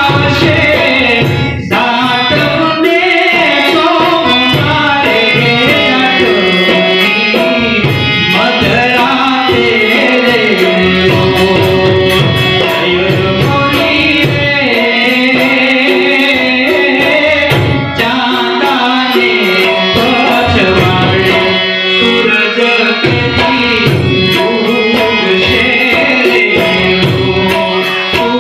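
Gujarati folk song (lokgeet) performed live: a man sings into a microphone to harmonium and tabla accompaniment.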